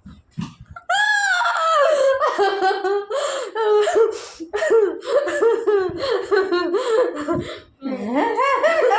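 High-pitched laughter in long, rapid peals, starting about a second in, with a short break near the end.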